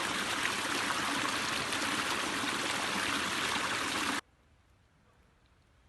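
A steady, even rushing noise, like running water, that cuts off suddenly about four seconds in.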